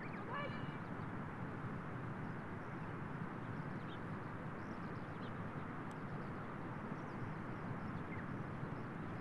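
Steady outdoor background noise with faint, scattered bird calls, a few short chirps standing out just after the start.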